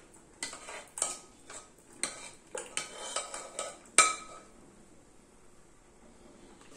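A ladle scooping mashed toor dal and clinking against the cooking vessels as the dal is spooned into a pressure cooker. It makes a run of light clinks and knocks, several a second, then one sharp knock about four seconds in.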